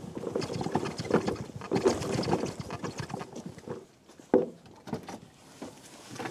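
Metal-framed handcart loaded with plastic crates clattering and rattling as it is wheeled over rough ground, for about four seconds. Then a few separate knocks, one sharp knock just after the clatter stops.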